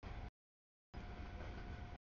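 Freight train's gondola cars rolling past over a grade crossing: a low, noisy rumble with a thin steady tone over it. The sound cuts out completely to dead silence about a third of a second in and returns about a second in, the dropouts of the camera's audio stream.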